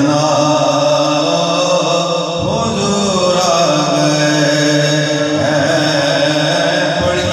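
Men's voices chanting a naat (devotional Urdu poem) together in a slow, drawn-out melody, the reciter leading and the gathering joining in.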